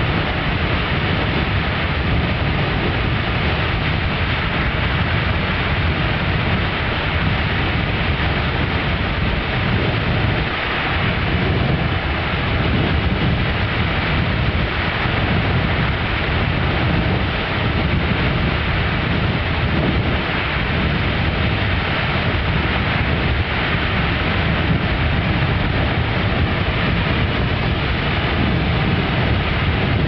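Beehive Geyser erupting: an intense, unbroken rush of water and steam forced from its cone, a heavy uneven rumble beneath a steady hiss.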